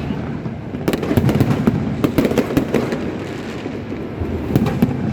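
Fireworks going off in quick succession: many overlapping bangs and crackles.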